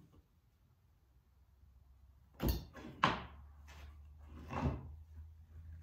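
A few wooden knocks and thunks from hand work on a wooden frame piece at a workbench, as a corner the saw left uncut is cleaned out. Four knocks come over about two seconds from halfway through, the second the loudest, over a low steady hum.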